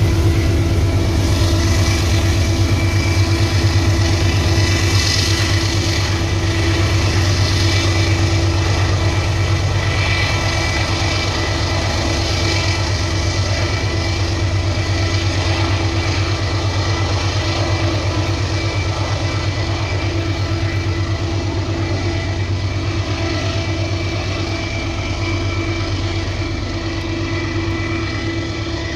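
Diesel-electric freight locomotive running, a steady low engine drone that fades slowly as the locomotive draws away.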